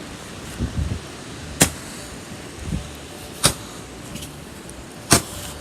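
Small consumer firework going off: three sharp pops about two seconds apart.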